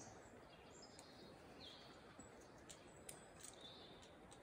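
Near silence: faint outdoor ambience with a few brief, distant bird chirps and a couple of faint ticks.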